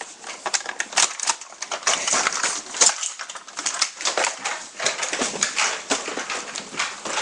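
A fast, irregular run of plastic clicks and knocks from Nerf blasters being handled, primed and fired.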